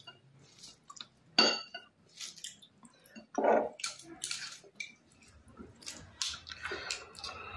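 Eating sounds: food being handled on a plate, with scattered clinks and wet squelches, and chewing. The two loudest sounds come about a second and a half in and about three and a half seconds in.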